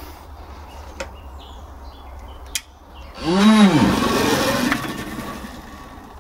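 Electric motorcycle's motor run at full current and maximum acceleration: a whine that sweeps up sharply and falls back within about a second, followed by a rushing noise that fades as the bike pulls away. Two small clicks come before it.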